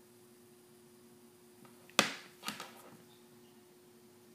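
Handling of a paracord shotgun sling with metal sling swivels: one sharp click about two seconds in, then two softer clacks, over a faint steady hum.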